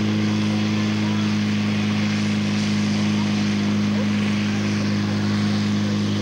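Fire pump engine running steadily at high speed, a constant drone, driving two hose jets at full pressure, with the hiss of spraying water.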